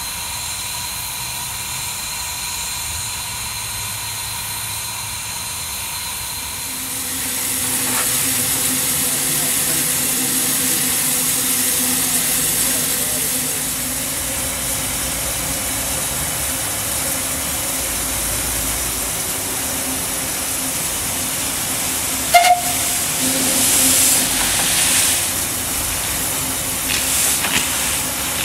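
Exmoor-built 0-4-2T 15-inch-gauge steam locomotive standing with steam hissing steadily. The hiss grows louder about a quarter of the way in, with a single sharp click and a few brief surges of hiss near the end.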